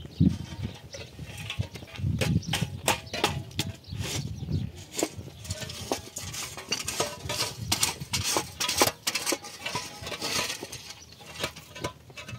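Hollow concrete blocks being lifted, set down and stacked: irregular knocks, clinks and scrapes of concrete on concrete.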